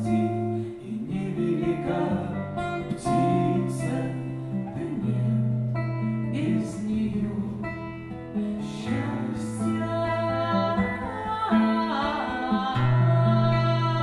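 Acoustic guitar playing a slow instrumental interlude between verses of a song, moving through changing chords with low bass notes.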